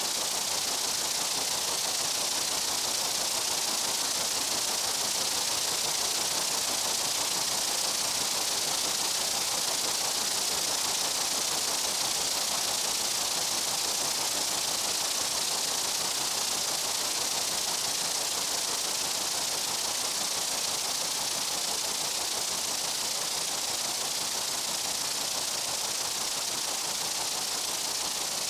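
Steady chorus of meadow insects: an even, high-pitched, hiss-like buzzing with no single insect standing out.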